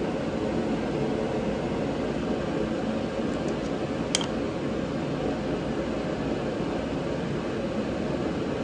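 Steady whir of a shop fan running, with one light metallic click about four seconds in.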